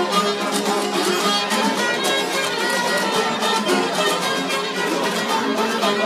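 Albanian folk tune played on long-necked lutes, a sharki and a çifteli, plucked in a fast, even rhythm.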